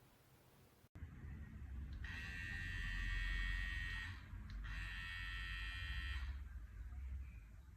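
Hatteker electric hair clipper switched on and running with a steady buzz, stopped briefly near the middle and run again, over a low rumble of handling.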